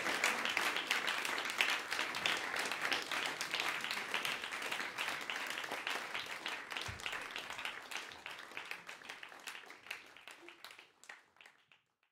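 Audience applauding, dense at first, then thinning to scattered claps and dying away near the end.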